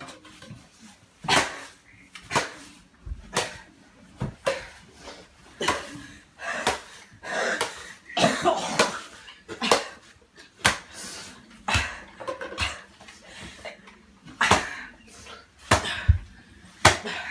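A string of sharp thumps and smacks, about one a second, with scuffling and brief bits of voice between them, as people move and tussle around someone lying on a wooden floor.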